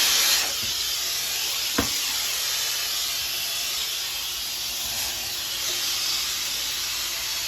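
Compressed air at 90 psi hissing steadily out of the air line of a homemade duct-cleaning blower, a little louder for the first moment, with a single knock about two seconds in.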